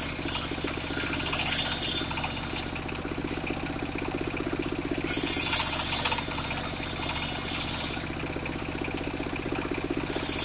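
Engine of a portable circular sawmill running steadily, with short high hissing bursts every two to four seconds.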